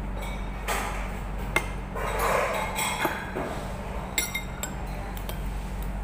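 Metal spoon and fork clinking against a ceramic bowl while eating: a handful of short, scattered clinks, some with a brief ring, over a steady low hum.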